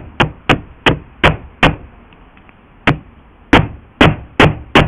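Hammer striking freshly welded steel patch plates, sharp blows about three a second with a pause of about a second midway. He is testing that the welds are solid.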